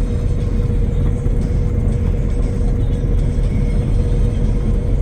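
Tractor engine running steadily while mowing, with a constant steady whine over its low rumble.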